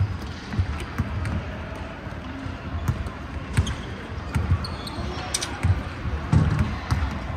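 Basketballs bouncing on a hardwood gym floor: irregular low thuds from several balls, with a few short high squeaks about five seconds in.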